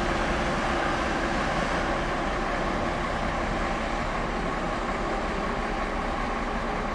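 ICE high-speed train running in the station: a steady rushing rumble with a few faint tones, easing off a little toward the end.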